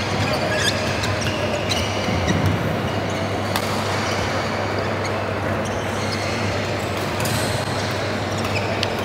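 Badminton hall ambience: a steady low hum and background noise, with scattered sharp shuttlecock hits and short shoe squeaks from play on the courts.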